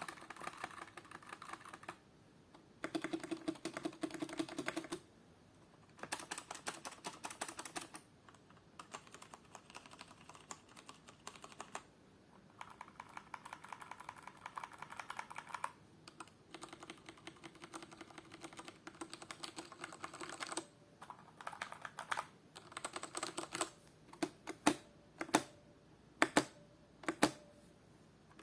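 Mechanical keyboards with tactile brown switches, Cherry MX Brown and Kailh BOX Brown, typed on in a series of short bursts of fast keystrokes separated by brief pauses. Near the end the keys are pressed singly and more slowly, each stroke louder.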